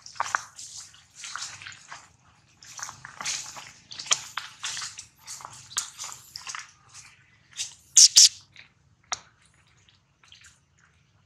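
Irregular crinkling and rustling of dry leaves and a thin plastic water bottle as monkeys move about, then grab and mouth the bottle. There is a loud crackling burst about eight seconds in.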